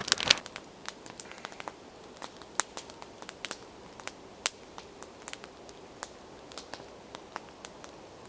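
Top-down layered log campfire burning, the wood giving off irregular sharp snaps and pops over a faint hiss, with a louder cluster of them right at the start.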